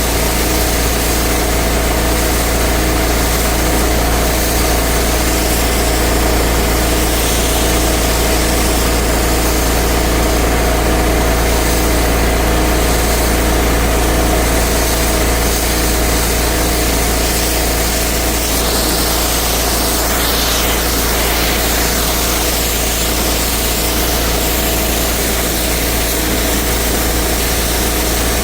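Pressure washer running steadily: an engine's even drone under a continuous hiss.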